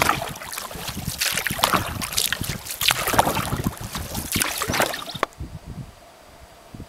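Wooden canoe paddle strokes: the blade swishing and splashing through lake water in a steady rhythm, about one stroke every one and a half seconds. The sound stops abruptly a little past five seconds in.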